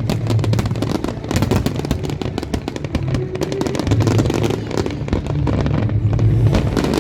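Fireworks display: a dense, rapid run of crackles and pops going off without a break, over a steady low rumble.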